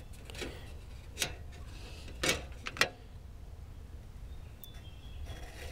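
A few short taps and scrapes as a pen draws layout lines on aluminium sheet against a small square. There are four of them in the first three seconds, over a steady low rumble.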